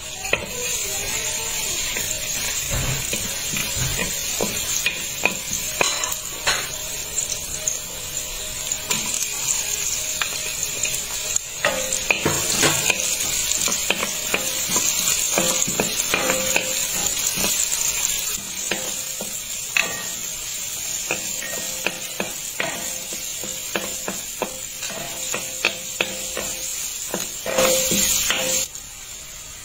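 Chopped garlic and sliced red onion sizzling in a stainless steel pan, with a wooden spatula scraping and clicking against the pan as they are stirred.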